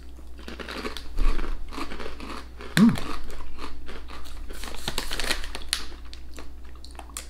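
Crinkling and rustling of a metallised crisp bag being handled, in irregular bursts, mixed with crunching and chewing of crisp, ridged chip ribbons.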